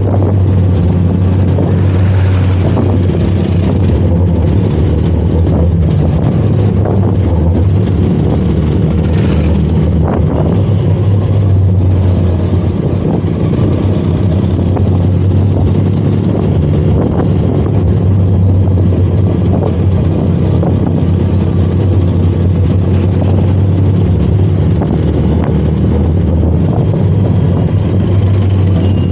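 Benelli TRK 502 X motorcycle's parallel-twin engine running steadily, heard close up from on the bike.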